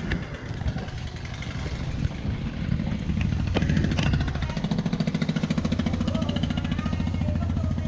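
A small engine running, growing louder from about two seconds in and then holding a steady, fast-pulsing note.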